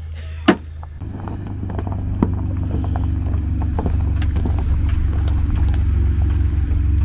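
A motor vehicle engine runs, getting steadily louder from about a second in, with scattered clicks and knocks over it.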